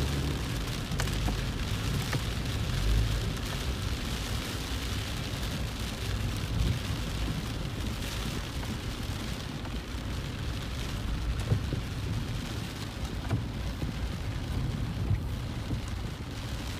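Heavy rain falling on a car's roof and windscreen, heard from inside the cabin as a steady hiss with scattered drop ticks, over a steady low rumble from the car in traffic.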